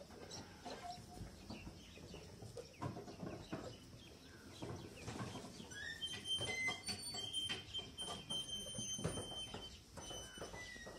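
Birds clucking and calling around the monastery, with scattered knocks. In the second half come several high, sustained bell-like ringing tones, each holding for a second or more.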